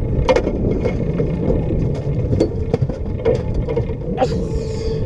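Boat motor running steadily under wind and water noise, with scattered knocks and clicks and a brief rushing hiss about four seconds in.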